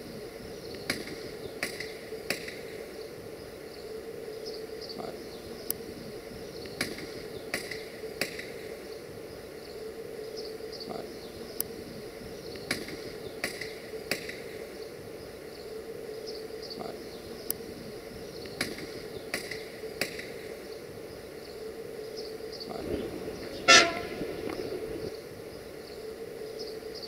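A single short horn toot near the end, the loudest sound, over a steady hum with scattered light clicks.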